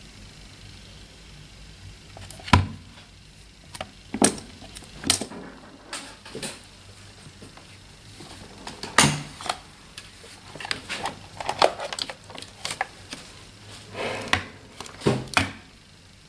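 Irregular clicks and knocks of small hard objects being handled, a dozen or so sharp taps at uneven intervals, with a faint low hum that stops about a second and a half in.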